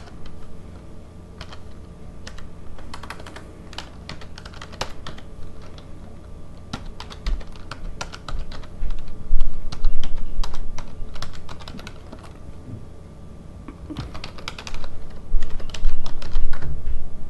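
Typing on a wireless computer keyboard: keystrokes clicking in irregular runs with short pauses, busiest in the middle and near the end.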